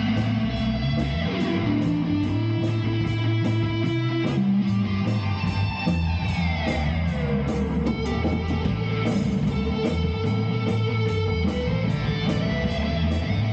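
Instrumental band jam: electric guitar over bass with a steady beat, with a sliding guitar note falling about six seconds in.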